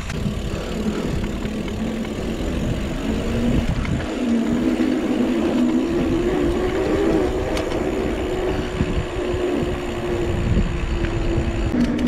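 Mountain bike's knobby tyres humming as they roll over a paved path, a steady hum that rises a little in pitch about four seconds in. Underneath is a constant low rumble of wind on the camera microphone.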